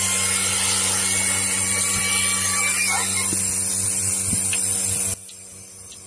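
Portable bucket milking machine running while its teat cups are fitted to a cow: a steady motor hum with a hiss from the vacuum pump. It drops sharply to a much fainter hum about five seconds in.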